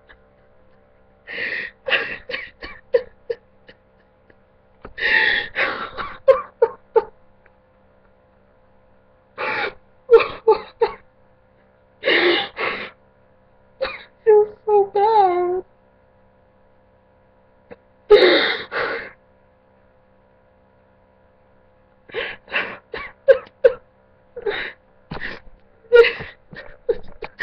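A man sobbing: gasping breaths, sniffs and whimpers in bursts separated by quiet pauses, with a short wavering whimper about halfway through.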